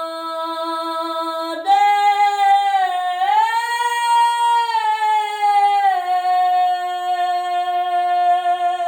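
A single voice singing the wordless 're na' refrain in long held notes: a steady note, then about two seconds in a higher note that rises, holds, and slides back down about six seconds in.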